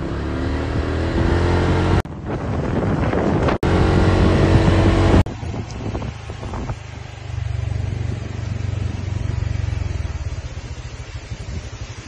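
Small motorbike engine running at road speed with heavy wind noise on the microphone. The engine note rises slightly in the first couple of seconds, and the sound breaks off abruptly a few times in the first half.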